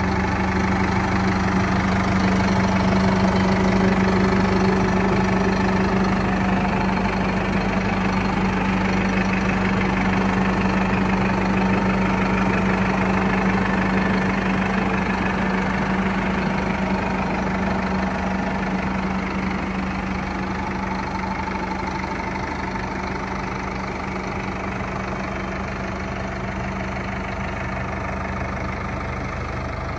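2021 Massey Ferguson 5713 S tractor's diesel engine idling steadily, growing a little quieter in the second half.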